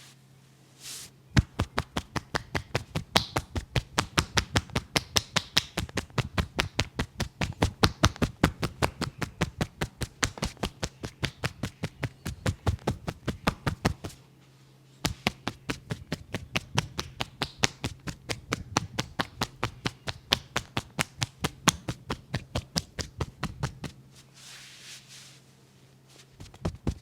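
Hands tapping in a percussive massage, rapid even slaps about five a second. The slaps stop briefly about halfway through and again for a couple of seconds near the end.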